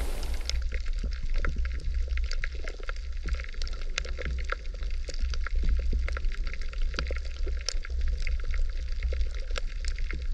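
Underwater sound picked up by a camera: a steady low rumble of moving water with many scattered, crackling clicks. For the first half second a hiss of rushing water.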